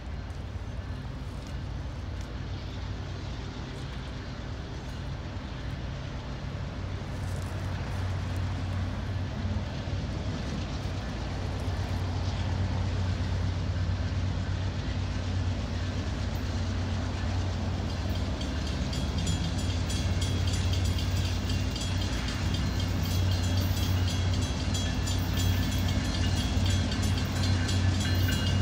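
CSX freight train's diesel locomotives approaching at a crawl: a steady low engine drone that grows louder as they near. About two-thirds of the way through, a rapid, high-pitched repeating sound joins in.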